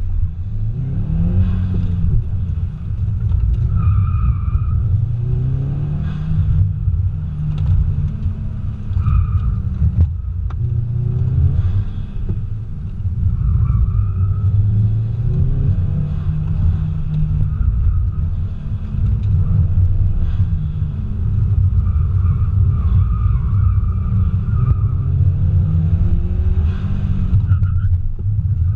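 2015 Subaru WRX STI's turbocharged 2.5-litre flat-four, fitted with a Cobb cold air intake, revving up hard and dropping back again and again through an autocross run, heard from inside the cabin. The tyres squeal briefly in several corners.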